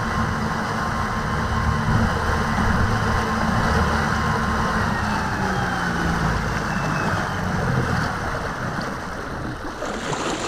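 Electric-powered fishing boat under way: wind buffeting the microphone and water rushing past the hull, with a faint motor whine that falls in pitch and fades about halfway through. The sound eases off near the end as the wake shrinks.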